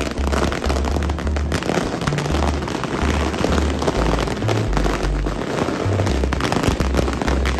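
Firecrackers crackling in a dense, continuous rattle of rapid bangs, over background music with a stepping bass line.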